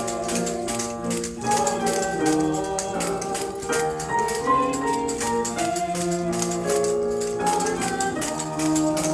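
A children's song playing, with voices singing to instrumental accompaniment and a tambourine or shaker jingling along in time.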